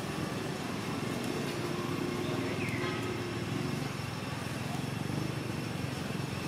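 A steady low engine rumble with a fast even pulse, like a motor vehicle running nearby, under outdoor background noise.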